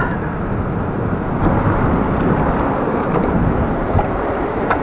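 Steady rushing noise of surf washing against the rocks, with wind buffeting the microphone.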